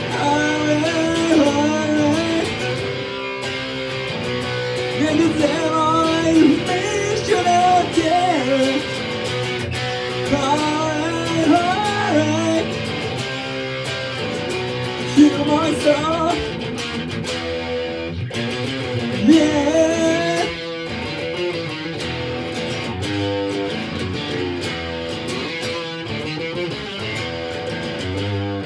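Electric guitar strummed through an amplifier while a man sings along. The singing stops about twenty seconds in, and the guitar carries on alone.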